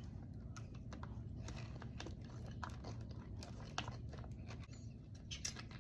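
A person chewing and biting food close to the microphone: soft, irregular crunching and wet mouth clicks, over a faint steady low hum.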